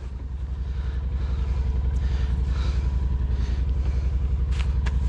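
Off-road vehicle engine idling steadily with an even low pulse. Two light clicks come near the end.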